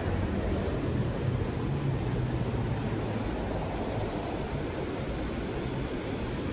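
River water rushing steadily, with a low engine hum that fades out over the first few seconds.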